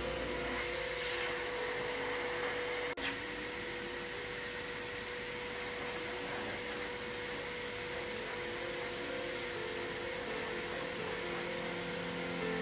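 Hose-type pet blower dryer running steadily: a rush of air with a constant whine. The sound drops out briefly about three seconds in.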